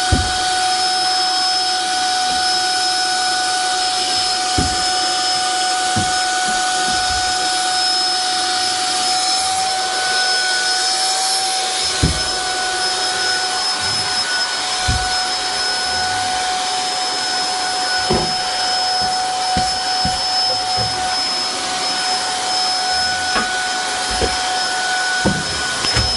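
Vacuum cleaner running steadily, its motor giving a constant whine over a rushing-air hiss, with a dozen or so short dull knocks scattered through it.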